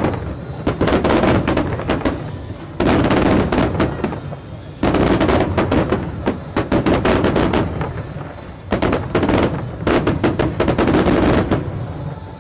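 Aerial fireworks shells bursting in volleys of rapid, sharp bangs. Four volleys, each fading into a low rumble before the next.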